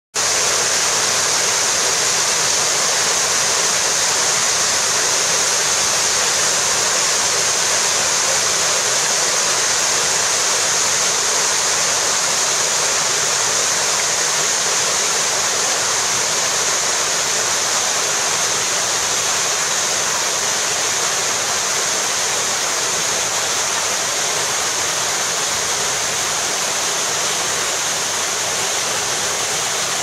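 Artificial waterfall of many thin streams pouring off rock ledges into a swimming pool: a steady, loud rush of falling and splashing water, growing slightly fainter toward the end.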